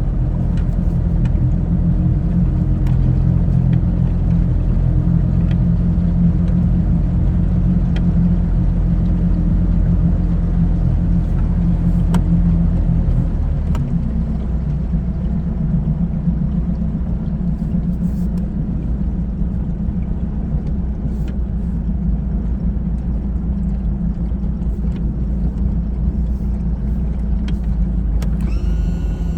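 Boat's older four-cylinder engine running steadily, a low drone; about halfway through the engine note drops a little and settles lower.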